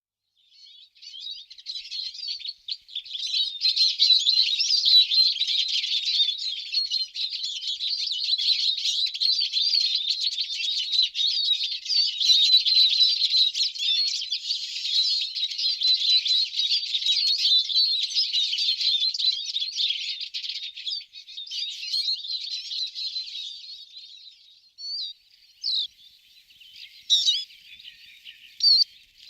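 Small birds chirping and twittering, many at once in a dense, continuous chatter. Around two-thirds of the way through it thins out to scattered single calls.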